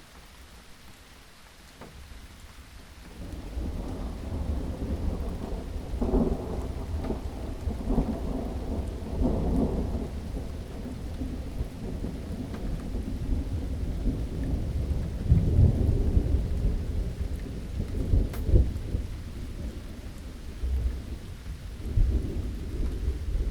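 Steady rain with a long, deep roll of thunder that builds about three seconds in and rumbles on, swelling louder several times.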